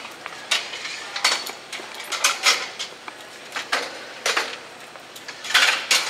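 Irregular clattering and scraping of hard objects: about half a dozen short bursts at uneven intervals, the loudest near the end.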